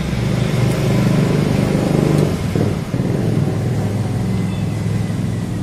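An engine running steadily with a low hum, a little louder about two seconds in.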